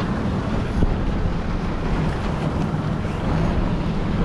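Wind buffeting the microphone over choppy open water, with a low steady drone underneath that grows a little louder partway through.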